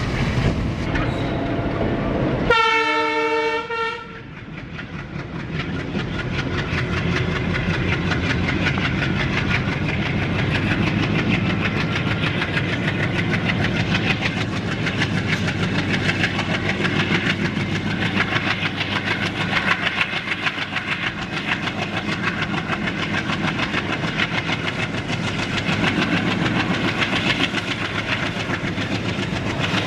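ALCO WDG-3A diesel locomotive sounds its horn once for about a second and a half, a few seconds in. Its ALCO V16 diesel engine then chugs with a steady beat, growing louder over the next few seconds as the train pulls away on the main line.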